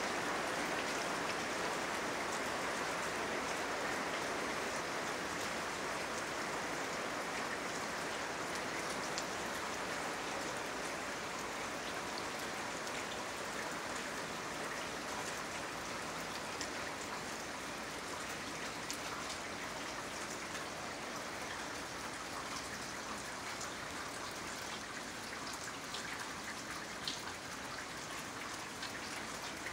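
Steady rain falling, with scattered individual drops ticking.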